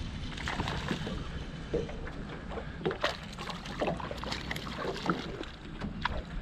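Water lapping and sloshing against a small aluminium fishing boat, with wind on the microphone and scattered small splashes and knocks.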